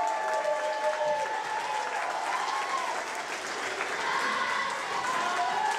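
Audience applauding steadily, with voices calling out and cheering over the clapping.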